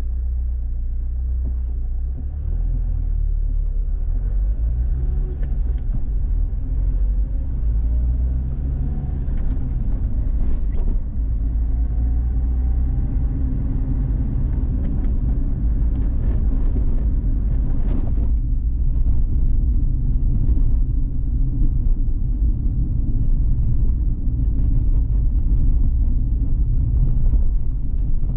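Steady low rumble of a car on the move, engine and road noise, with a few faint clicks and knocks along the way.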